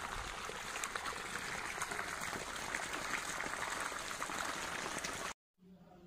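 Borewell water gushing out of the open end of a PVC pipe into a dirt irrigation channel: a steady splashing rush of flowing water. It cuts off abruptly about five seconds in.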